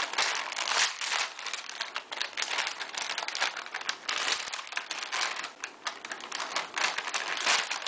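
Plastic packaging crinkling and rustling as it is handled, with many small crackles and rustles throughout.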